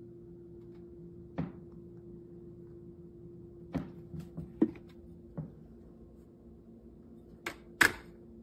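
A steady low hum with about six sharp clicks and knocks scattered through it, the two loudest close together near the end.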